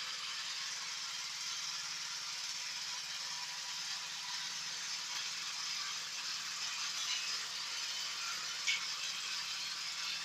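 Multipurpose food grinding machine running steadily with a rattling whir, with one sharp click near the end.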